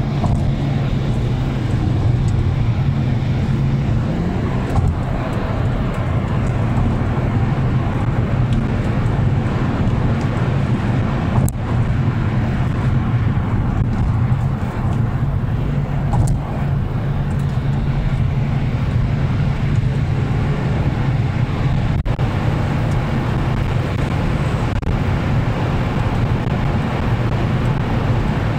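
Steady road noise of a car at highway speed heard inside the cabin through a dashcam microphone: a continuous low drone of tyres and engine, with a couple of brief knocks partway through.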